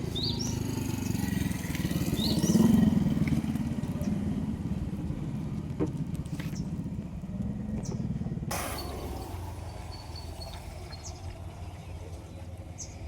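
Diesel engine of a JCB machine running steadily, swelling briefly about two to three seconds in and settling lower after about eight seconds.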